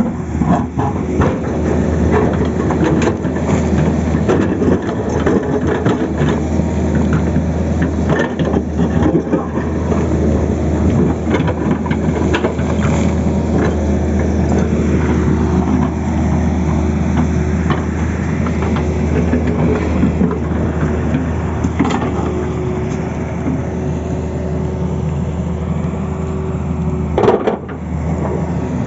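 Tata Hitachi excavator's diesel engine running steadily, with repeated cracking and crunching as its bucket cuts into the road surface, and one sharp bang near the end.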